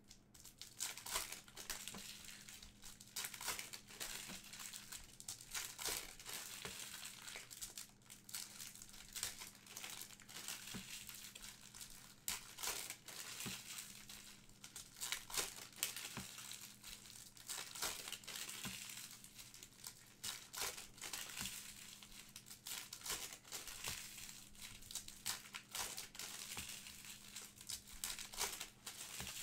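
Trading card packs being torn open and their wrappers crinkled, with cards handled: a continuous, irregular run of quick crackles and rustles.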